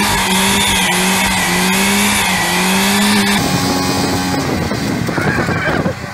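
BMW E36 engine held at high, steady revs with the rear tyres spinning in a smoky burnout. About three and a half seconds in, the engine note drops lower and the tyres squeal briefly.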